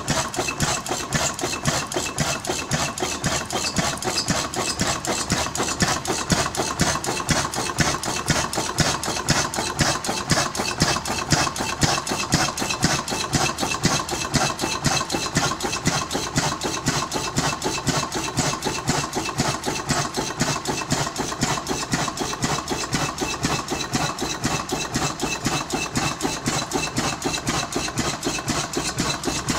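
1905 MAN DM10 historic diesel engine running at a steady idle, its valve gear and fuel pump making an even, rapid mechanical clatter.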